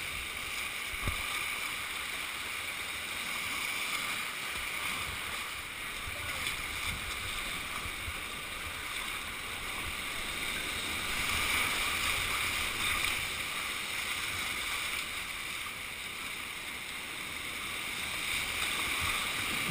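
Steady rushing of a whitewater rapid, heard from a kayak running through it. It gets a little louder about halfway through.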